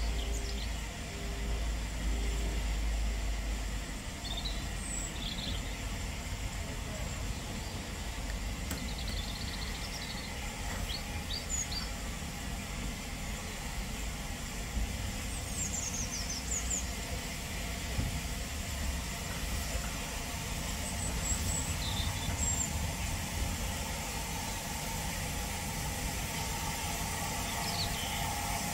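Outdoor background: a steady low rumble with small birds chirping every few seconds, and a few short, evenly spaced low beeps in the first couple of seconds.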